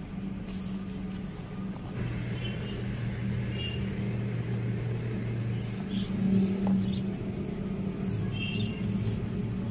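Hands squeezing and crumbling dry sand clumps into water in a basin: soft gritty crunching and trickling. Under it runs a steady low hum, and a few short bird chirps come in twice, a couple of seconds in and near the end.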